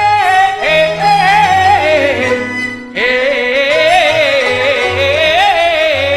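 A Peking opera aria in the fan erhuang mode, sung with long drawn-out notes that waver and slide in pitch over instrumental accompaniment. The sung line breaks off briefly about three seconds in, then resumes.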